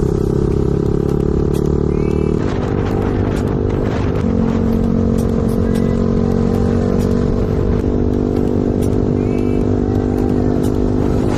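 Motorcycle engine running steadily while riding, its note shifting about two seconds in and again about four seconds in.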